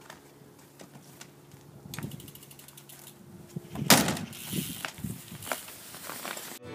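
BMX bike being wheeled out of a wooden shed: the rear hub's freewheel ratchet ticks in a quick run of clicks about two seconds in, then a loud knock near four seconds, followed by a few lighter knocks and rattles from the bike.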